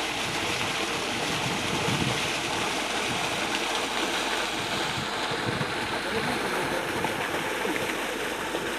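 Steady rush of water gushing from a dam wall's outlet pipe and splashing into the pool below.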